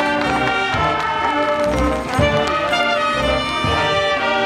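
High school marching band playing: the brass section holds sustained chords, with drum hits in the low end underneath.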